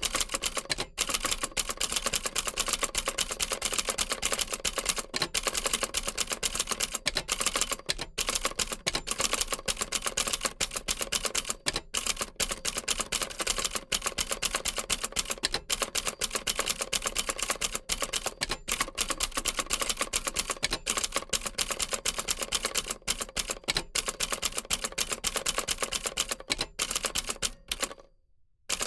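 Old typewriter typing fast: a dense, uneven run of key strikes that stops abruptly near the end.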